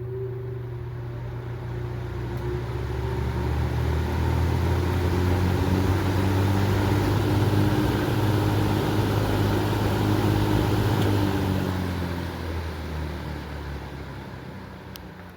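Vintage 1960s Dominion 20-inch two-speed box fan starting up on high speed: a motor hum and rushing air build over the first few seconds, run steady, then fade away over the last few seconds.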